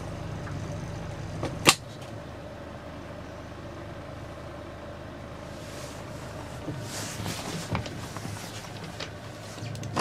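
Motorboat engine running at low speed during a slow docking manoeuvre, with a single sharp clunk about two seconds in, after which the engine sound drops to a quieter hum; a few smaller knocks follow later.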